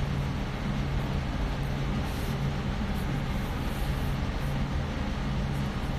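A steady low hum under an even hiss of background noise, unchanging throughout, with no speech.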